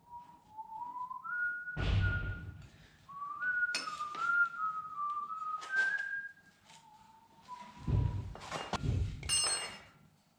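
A person whistling a tune, one clear note stepping up and down in pitch, while heavy metal parts thunk and clank several times; one clank near the end rings like struck steel.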